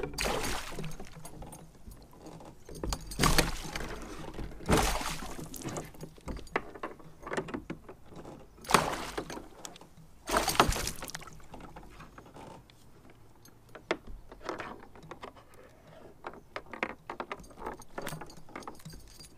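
Fishing gear being handled in a kayak: rattling, clicking and knocking, with about five short, louder swishing bursts, while a hooked northern pike is brought to the side by hand.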